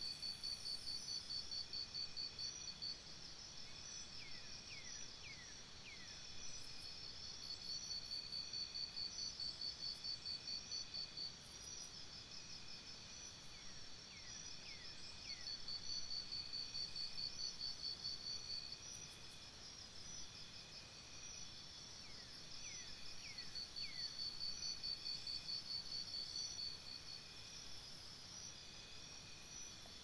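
Forest insect chorus: high-pitched trills in fast, even pulses, swelling in phrases of several seconds and fading between them. Three times, a quick run of three or four short falling whistles cuts through.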